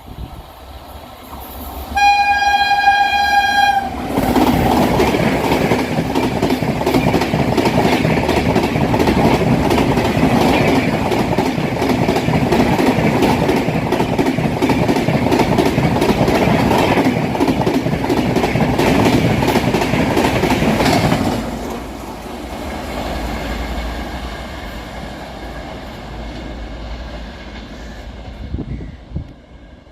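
Locomotive horn sounding one steady note for about two seconds, then an express train running through the station at speed without stopping: loud rushing and clatter of the coaches for about seventeen seconds, dropping off sharply as the last coach passes and fading to a low rumble.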